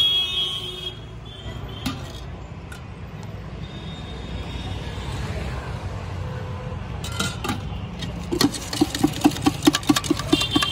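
A spoon knocking and scraping against a steel tin as bhel is stirred and tossed, a quick even run of about four strikes a second starting about eight seconds in, over a low hum of street traffic.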